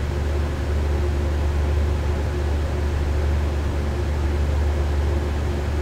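Steady low hum with an even hiss behind it, unchanging, with no distinct events.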